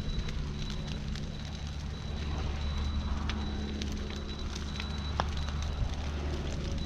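Burn pile crackling and popping with scattered sharp snaps, over the steady low running of a mini excavator's diesel engine.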